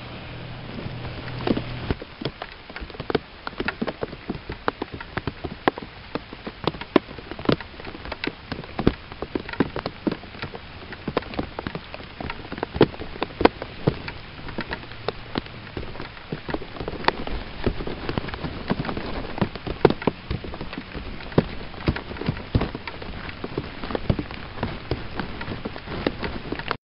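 Steady rain, with dense, irregular drops tapping sharply close by.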